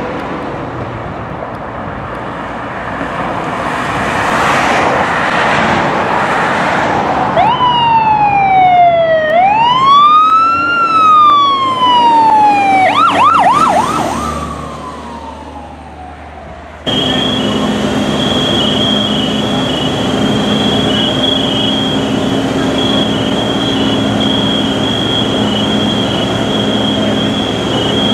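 A fire ladder truck passing with its electronic siren sounding. Road and engine noise builds over the first seconds, then the siren's wail falls, rises and falls again, switches briefly to a fast yelp, and fades away. About seventeen seconds in, a sudden cut brings a steady machine drone with a thin high pulsing whine.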